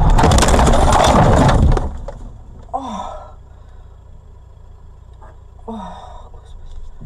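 Loud crunching and scraping of a car colliding with the side of an SUV for a little under two seconds, then two short falling-pitched exclamations from a person a few seconds apart.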